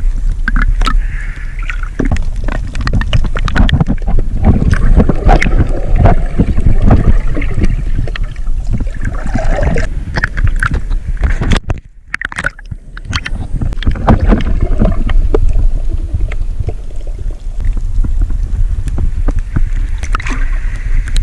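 Sea water sloshing and splashing close to the microphone, with many sharp splashes over a heavy low rumble of water and wind buffeting; it drops away briefly about halfway through.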